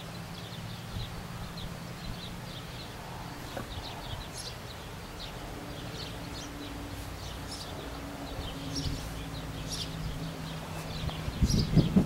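Small birds chirping repeatedly over a low steady hum, with a few louder low knocks near the end.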